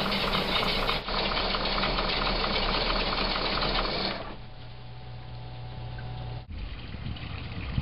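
Crusader 5.7-liter V8 marine engine running with a fast, even clatter while it draws descaling solution through its raw water cooling system. About four seconds in the sound drops to a quieter, steadier run, and it changes abruptly again a couple of seconds later.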